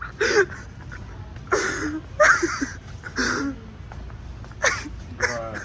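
Several short human vocal sounds, breathy bursts and brief indistinct utterances, spaced about a second apart over a steady low hum.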